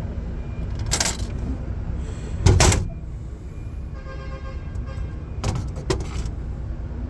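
A steady low rumble, as of an engine running, with several sharp metallic clanks and knocks; the loudest comes about two and a half seconds in.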